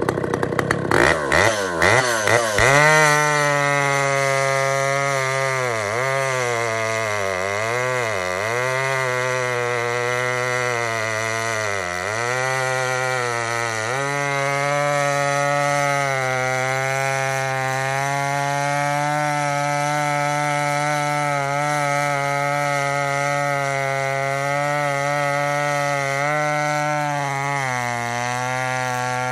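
Stihl 075 AV two-stroke chainsaw blipped a few times, then held at full throttle as it cuts down through a thick log. The engine note dips in pitch several times in the first part of the cut as the chain loads up in the wood, then runs steady.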